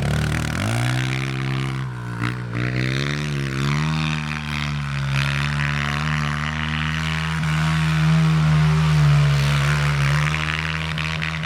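Dirt bike engine running, its pitch dipping and climbing over the first few seconds and then holding a steady note.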